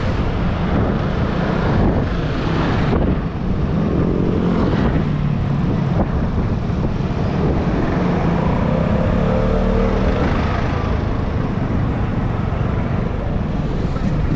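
Vespa S125 scooter on the move: its single-cylinder four-stroke engine running under a steady low rush of wind and road noise on an action-camera microphone.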